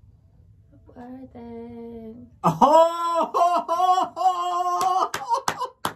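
A voice singing an ad-lib: soft at first, then from about two and a half seconds in a loud, high, wavering run of held notes that breaks into shorter phrases near the end.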